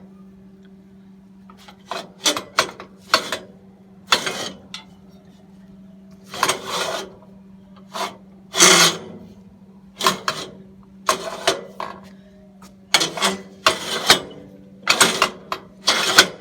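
Metal blade guide on a homemade bandsaw sawmill being slid back and forth on its mount: a string of short, irregular metal-on-metal scrapes and clunks over a steady low hum. The guide slides a little stiffly because it is tensioned against its mount.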